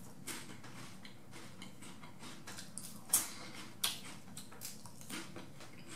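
Crunching and chewing baked pea crisps: irregular soft crunches and clicks, the sharpest about three seconds in and again just before four seconds.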